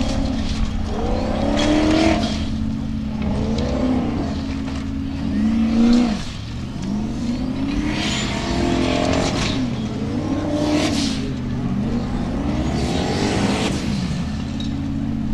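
Formula Offroad buggy's engine revving hard in repeated surges, its pitch climbing and falling again every second or two as it claws up a steep dirt bank, with bursts of noise from the spinning tyres and thrown dirt.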